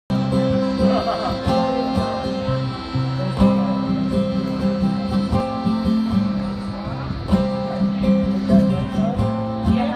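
Acoustic guitar strummed in a steady rhythm, with a piano accordion holding long chords underneath.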